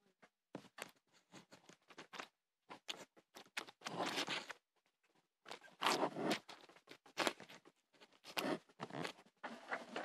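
Handling noise from a phone being moved about with fingers rubbing against it: a run of clicks, rustles and scrapes, with longer scraping rubs about four and six seconds in and again near the end.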